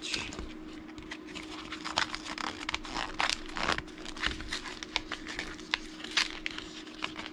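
Plastic and foil packaging of trading-card sleeved booster packs crinkling and tearing as the packs are worked out of their sleeves, in a dense run of irregular crackles.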